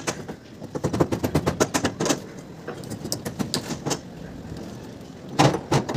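Rapid knocking and clattering from roof centring (slab formwork) work, hammer blows on the shuttering coming several a second. It thins out in the middle, and a burst of heavier bangs comes near the end.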